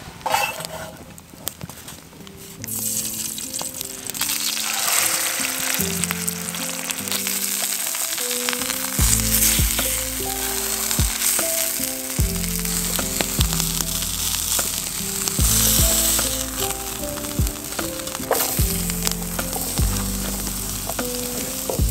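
Porterhouse steak sizzling and frying in a hot skillet, a steady hiss that starts a couple of seconds in. Background music with a bass line joins about nine seconds in, and sliced red onion is tipped into the pan near the end.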